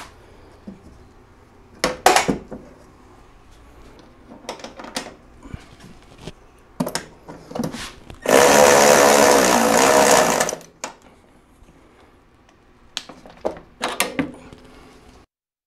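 A power ratchet runs a bolt down at the snowmobile shock's upper mount in one steady burst of a little over two seconds, about eight seconds in. Before and after it come short metallic clicks and clinks of hand tools on the fastener.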